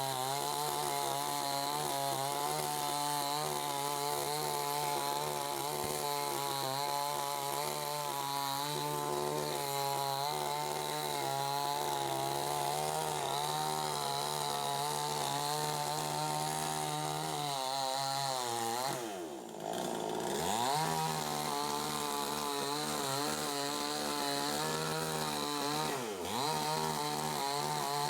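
Chainsaw running at high revs while cutting a dead tree. Its engine speed drops sharply and climbs back about two-thirds of the way through, and dips briefly once more near the end.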